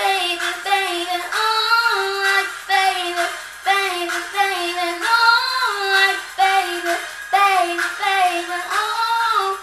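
An 11-year-old girl singing a pop song, her voice carrying short melodic phrases with brief breaks between them.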